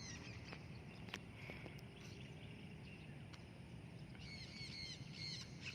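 Bird calls: a quick series of short, hooked, high-pitched calls, about four a second, starting about four seconds in, over a steady low outdoor rumble.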